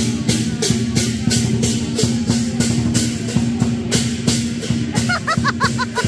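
Lion dance percussion: a drum beaten under cymbals clashing in a steady beat, about four clashes a second.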